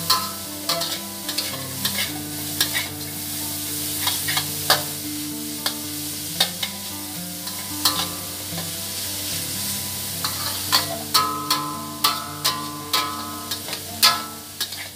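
Metal spatula scraping and clinking against a stainless steel wok as shredded carrot, scrambled egg and minced chicken are stir-fried in oil, with steady sizzling under the irregular strokes.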